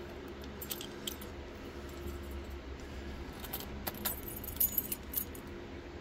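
Small metallic clicks and clinks of lock picks, tension wrench and padlocks being handled as one picked padlock is set aside and the tools go into the keyway of the next, with a quick cluster of sharper clinks about four to five seconds in, over a low steady hum.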